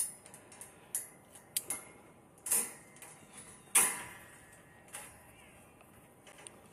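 Sharp metal clanks and clinks from a wire-mesh enclosure fence and its latch hardware being handled. About six come roughly a second apart, and the loudest fall at the very start and just before four seconds in.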